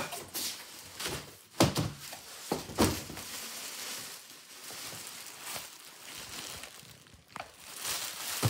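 A large cardboard box knocking on a wooden floor as it is set down and handled, with a couple of sharp thuds about one and a half and three seconds in, then plastic wrapping rustling around a guitar case.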